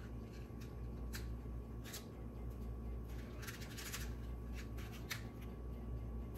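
Cupcake batter being scooped from a measuring cup into paper baking cups in a metal muffin tin: a scattering of short papery scrapes and taps, with a small cluster in the middle, over a low steady hum.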